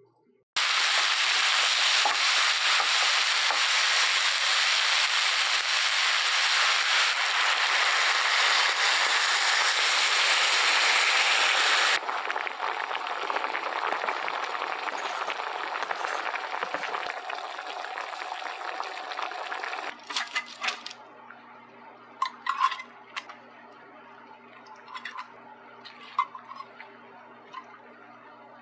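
Vegetables and sauce sizzling in a frying pan, loud at first and dropping suddenly to a quieter sizzle about twelve seconds in. In the last third, light clinks of metal tongs moving grilled fish in a glass baking dish, over a steady low hum.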